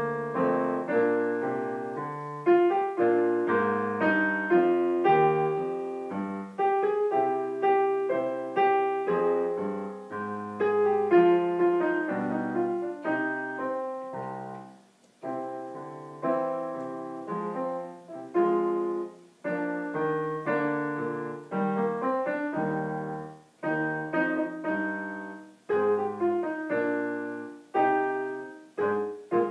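Piano playing an accompaniment part, its notes and chords struck and left to ring away, with brief breaks between phrases.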